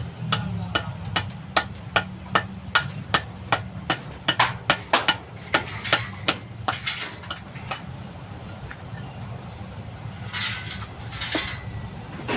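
Repeated hammer strikes, about two to three a second and briefly faster in the middle, stopping about seven seconds in, over a steady low engine hum.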